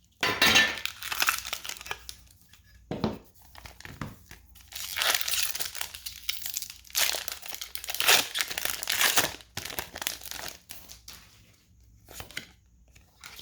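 Pokémon card packaging crinkling and tearing in several bursts with short pauses between: foil booster pack wrappers being handled and torn open.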